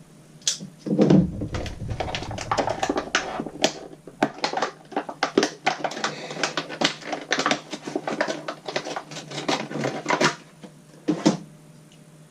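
Stiff plastic blister packaging crackling and snapping in quick, irregular clicks as it is cut and pried open, with a dull knock about a second in.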